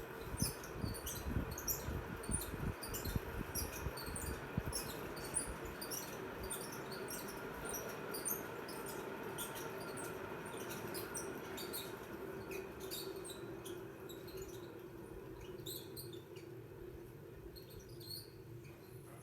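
Ceiling fan running with a worn bearing: a steady motor hum under irregular high squeaks and chirps from the bearing, with some low knocking in the first few seconds. The sound gradually gets quieter.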